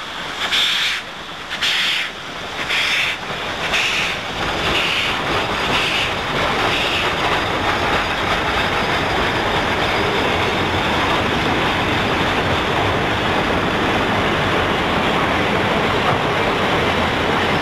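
McCloud River Railroad No. 19, a 2-8-2 steam locomotive, passing with exhaust chuffs about once a second that fade away over the first several seconds. Then the steady rumble and clatter of its freight cars rolling by on the rails.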